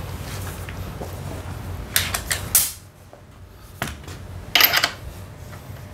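Metal hand tools and sockets clinking and clanking as they are handled and set down: a cluster of sharp clanks about two seconds in, a single one near four seconds, and another cluster soon after, over a steady low hum.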